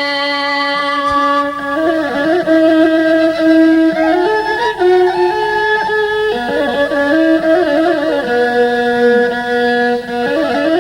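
Instrumental interlude of a slow devotional song: a melody of long held notes that steps from pitch to pitch.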